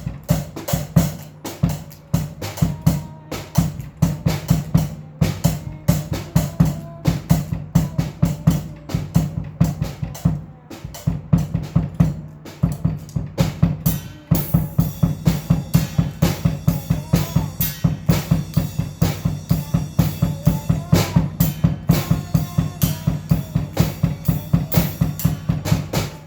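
Drum kit played in a fast, steady rock beat, bass drum and snare hits throughout. About halfway through, the playing grows denser and brighter.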